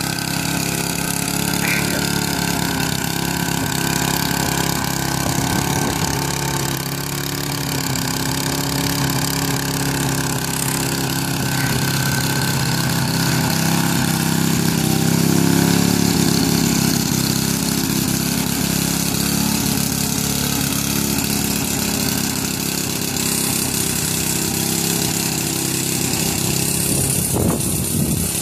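Craftsman walk-behind gasoline lawn mower running steadily while mowing grass, its small engine holding an even note, a little louder around the middle.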